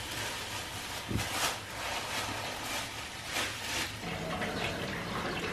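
Kitchen handling noises as boiled lemon skins are worked into a large enamel pot, then, about four seconds in, a steadier sound as the lemon-peel liquid is poured from the pot through a funnel into a plastic bottle.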